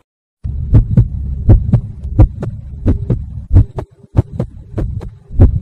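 Heartbeat sound effect: a fast lub-dub thumping, about one double beat every two-thirds of a second, over a low hum, starting about half a second in. It stands for a racing heart.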